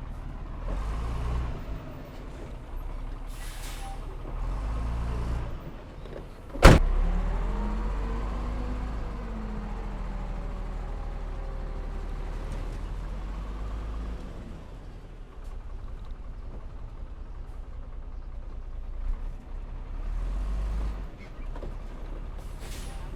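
Heavy diesel earthmoving machinery, a bulldozer and a dump truck, running with a steady low rumble. About a third of the way in comes one sharp, loud metal bang, and there are two short hisses, one early and one near the end.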